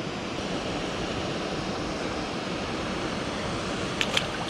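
Steady rushing outdoor noise, like running water or wind, with two or three short sharp clicks about four seconds in.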